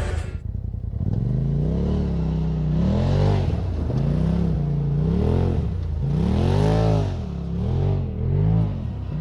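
Polaris RZR Pro XP side-by-side's turbocharged engine revving up and dropping back again and again, a swell in pitch about every second.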